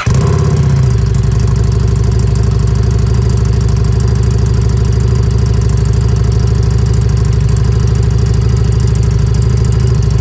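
Harley-Davidson Street 500's V-twin through a Two Brothers slip-on exhaust, catching at the start with a brief flare and then idling steadily and loudly.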